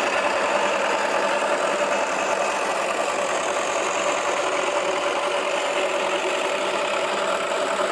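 Toy washing machine running, its small electric motor turning the drum with a steady whirring hum.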